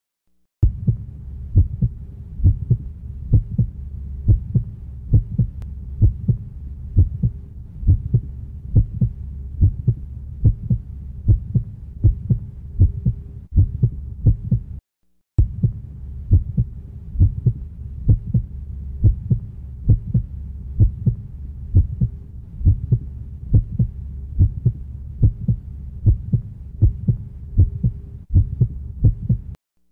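Heartbeat sound effect: low thumps repeating in a steady rhythm over a faint hum. It drops out for a moment about halfway through and cuts off just before the end.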